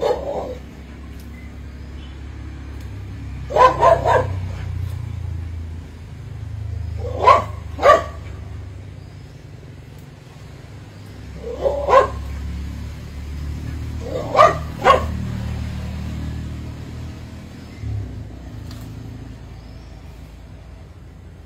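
Sharp barks from an animal, in short groups of two or three about every three to four seconds, over a low steady rumble.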